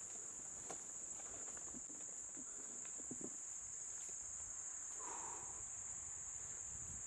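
A steady, high insect chorus drones without a break. Faint scattered clicks and rustles sit underneath it.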